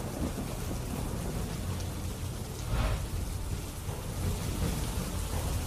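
Heavy rain falling steadily, with a low rumble of thunder underneath and a brief louder swell about three seconds in.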